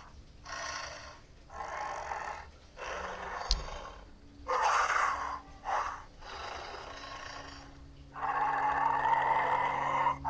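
Baryonyx dinosaur sound effects: a string of short, breathy growls and snorts about a second each, then a longer roar of about two seconds near the end.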